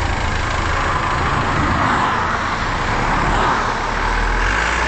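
Steady road traffic noise from a dual carriageway, with a van's engine running close by as a low, steady hum.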